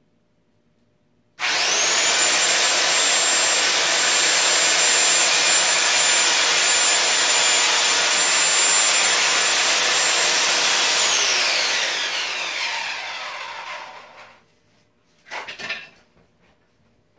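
Electric power saw switched on, running steadily at full speed with a high whine for about ten seconds, then winding down in pitch after it is switched off, while cutting a closet pole to length. A few short knocks follow.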